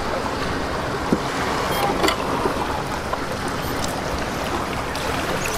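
Steady rushing noise of water.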